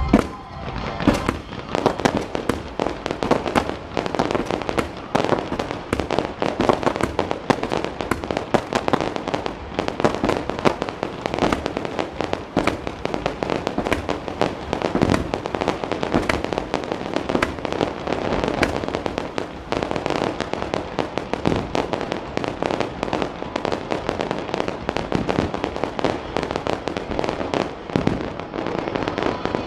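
Fireworks display: a dense, continuous run of crackling and popping bursts, several a second, opening with one loud bang.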